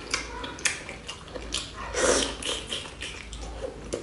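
Close-miked eating: a person chewing and smacking on food, with irregular wet clicks and mouth sounds, loudest about two seconds in.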